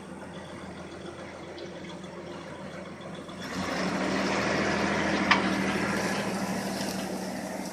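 Pickup truck engine pulling steadily on the tow rope. About three and a half seconds in, a louder rushing swish joins as the tree's leafy crown comes down through the air, like a breeze in the trees, with one sharp crack about five seconds in.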